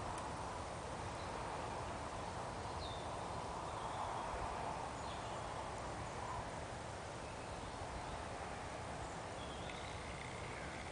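Steady outdoor background hiss with a few faint, short bird chirps scattered through it.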